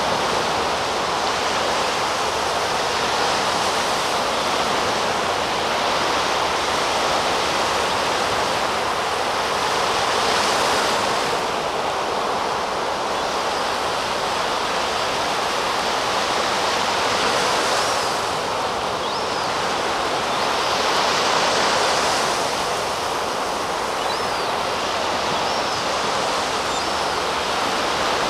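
Surf breaking steadily on the beach, swelling louder a few times. Several faint, thin, high cries come through in the second half: a juvenile herring gull begging for food.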